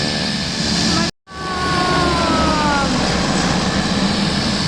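Beechcraft King Air 350's twin turboprop engines running loudly as the plane taxis, a steady whine over a deep drone. After a brief break about a second in, the whine's tones slide downward in pitch.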